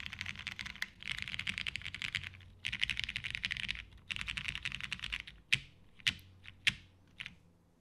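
Custom mechanical keyboard (TGR Jane V2 CE with an FR4 half plate, broken-in Brown tactile switches lubed with 205g0, and Cherry G81-3100 dye-sub keycaps) typed on fast in four bursts with short pauses. Near the end come about five separate, sharper key strikes.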